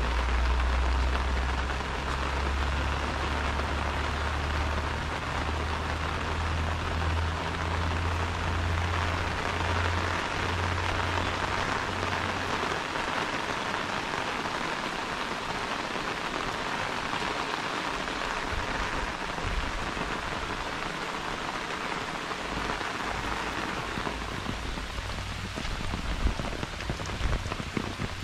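Steady rain falling on an umbrella overhead and on the surrounding plants and wet paths, an even hiss of countless drops. A low rumble sits underneath for roughly the first twelve seconds, and a few sharper drop hits stand out near the end.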